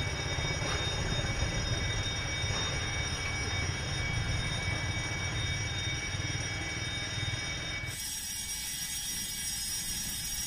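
Low, steady rumble of a train, with several steady high tones held above it; about eight seconds in the sound changes abruptly and the rumble drops away.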